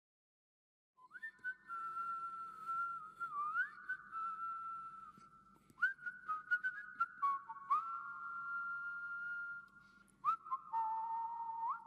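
A slow whistled melody starting about a second in: long held notes that scoop up into pitch, often two lines at once, with scattered light clicks.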